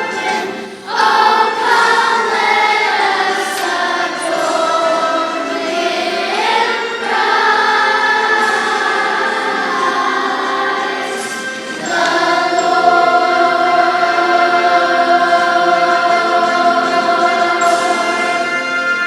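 Church choir singing in harmony, with a short break about a second in and a new, long held chord starting about twelve seconds in.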